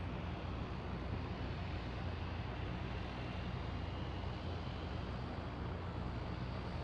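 Aircraft engines running: a steady low rumble with a faint high whine above it.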